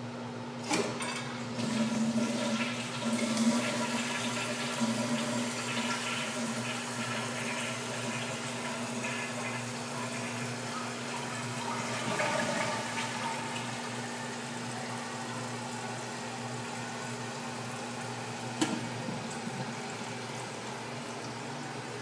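A 1958 Standard compact toilet flushing: the trip lever clicks about a second in, then water rushes out of the tank into the bowl, loudest in the first few seconds, before settling into a steady run of water as the tank refills. A single sharp click comes late on. The flush draws down all the water in the tank.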